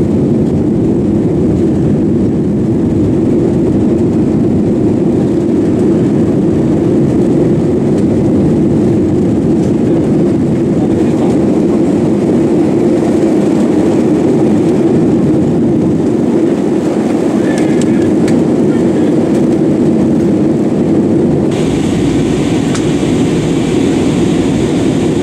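Steady noise of a jet airliner's engines and rushing air heard inside the passenger cabin, a deep even drone with a brighter hiss joining about 21 seconds in.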